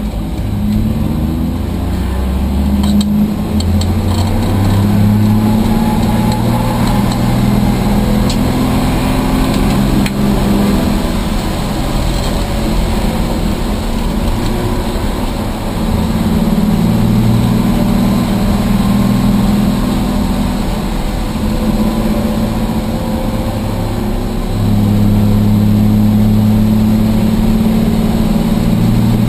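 Rambler race car's engine running hard on track, heard from inside the stripped cabin, its note climbing and then stepping to a new pitch several times as the car accelerates, shifts and lifts through corners.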